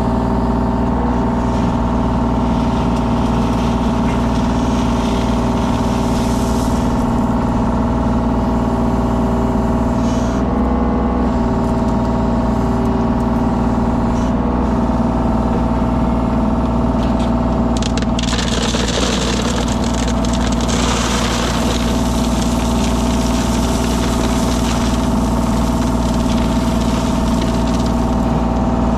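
The engine of a compact construction machine running steadily at a constant speed, its note shifting briefly twice. For a few seconds past the middle, a rough, rattling noise rises over it.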